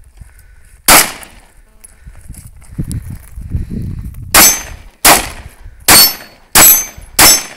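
Glock 19 9mm pistol firing: one shot about a second in, then a pause of about three seconds, then five shots in quick succession, about one every 0.7 s. The later shots carry a high metallic ring, the sound of rounds striking the steel target.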